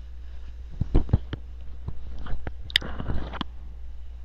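Scattered small clicks and taps from a small object being handled and fiddled with in the hands, over a steady low hum.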